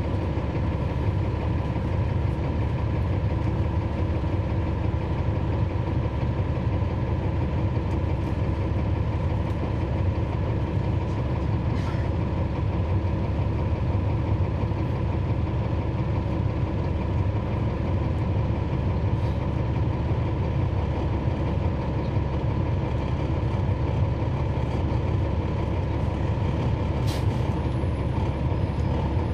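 2012 NABI 40-SFW transit bus's Cummins ISL9 diesel inline-six running steadily, heard from inside the cabin as an unchanging low drone.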